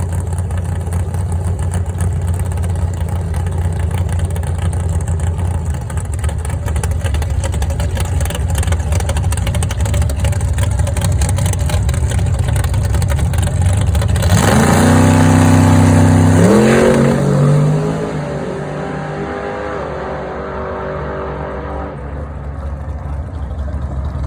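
A car engine running steadily, then a loud surge about fourteen seconds in. The engine note holds, then drops in pitch over a couple of seconds and dies down to a quieter running sound.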